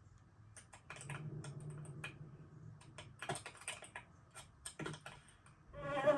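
Rapid, irregular light clicks and taps, scattered unevenly over a few seconds above a faint low hum. A louder buzzing sound starts near the end.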